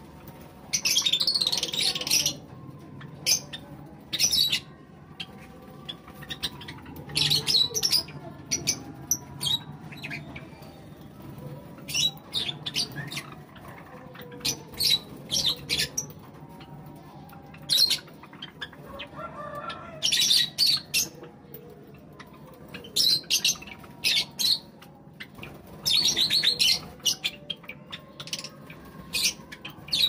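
Java sparrows calling while they feed: short bursts of high chirps every two to three seconds, over a faint steady low hum.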